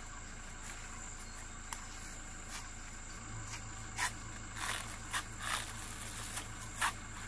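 A machete chopping and hacking at a tall dry stalk: irregular sharp knocks, faint at first and louder from about four seconds in. A steady high insect buzz runs underneath.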